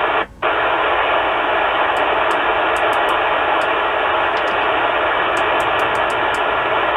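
Steady static hiss from a single-sideband radio receiver tuned to 27.555 MHz upper sideband, with no signal coming through. The hiss cuts out for a moment just after the start.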